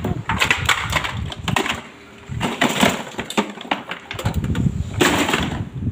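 Plastic toys clattering and knocking against each other and the sides of a plastic storage bin as they are dropped in and shuffled about: an irregular run of clacks with a short pause about two seconds in.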